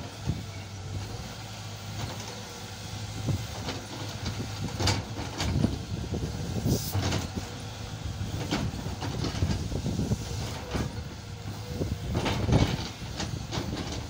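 SANY hydraulic crawler excavator's diesel engine running steadily under load while the bucket digs and scrapes soil, with sharp clanks and knocks from the bucket and boom at irregular intervals.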